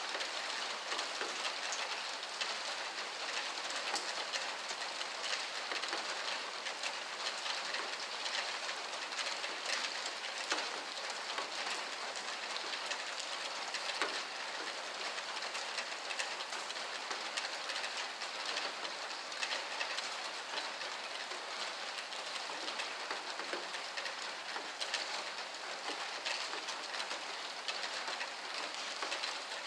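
Heavy rain falling steadily: a dense hiss dotted with many sharp ticks of individual drops.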